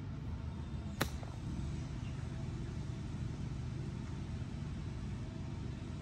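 A golf iron striking the ball once, a sharp click about a second in, over a steady low background rumble.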